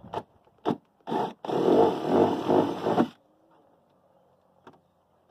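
A cordless drill bores a 3/4-inch drainage hole through a thick black plastic plant pot. It starts with a few short bursts, then runs for about two seconds as the bit cuts through the plastic, and stops about three seconds in.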